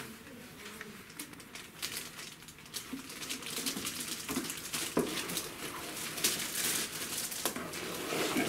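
Packaging from a laptop box crinkling and rustling as the contents are unpacked, with many small clicks and handling knocks. It grows busier and louder in the second half, with one sharp click about halfway.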